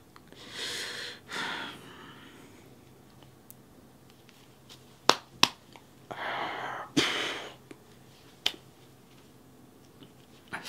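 A man breathing heavily and sniffing, four deep breaths with a few sharp clicks between them, as he holds back tears.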